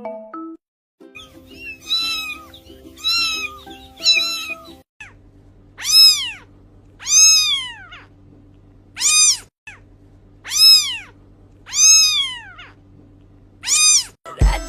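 A cat meowing again and again: three shorter meows, then six long meows that each rise and fall in pitch, over music with a steady low hum.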